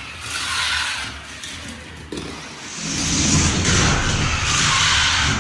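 Die-cast toy cars rolling fast along a plastic race track, their small wheels whirring and rattling. The noise swells into a louder rumble about three seconds in.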